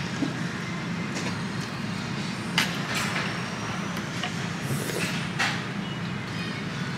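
A steady low rumble of background noise, with a few short clicks and knocks over it.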